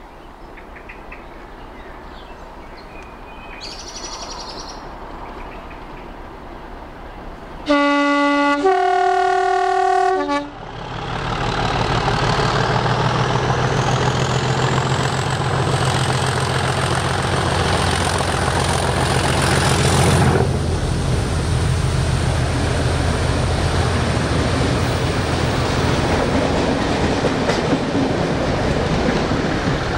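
British Rail Class 37 diesel locomotive 37607 approaching and passing close by. About eight seconds in it sounds its two-tone horn, a short lower note then a longer higher one. Its English Electric engine then grows loud with a high whistle rising in pitch, and after the locomotive passes, the coaches behind it roll past steadily.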